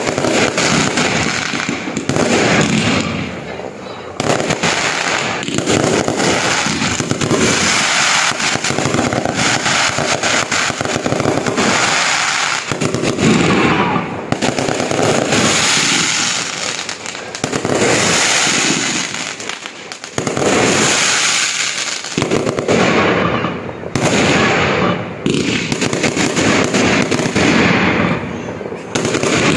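A fireworks barrage going off nonstop: dense crackling and popping from aerial shells and glittering crackle stars, with brief lulls every few seconds between volleys.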